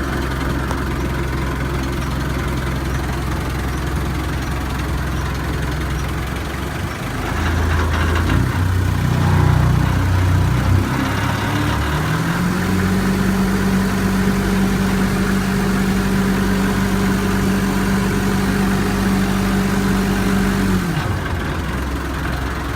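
Toyota SDK8 skid steer's diesel engine running, freshly started with working glow plugs. It idles steadily, is revved unevenly about seven seconds in, holds a higher steady speed from about twelve seconds, then drops back to idle near the end.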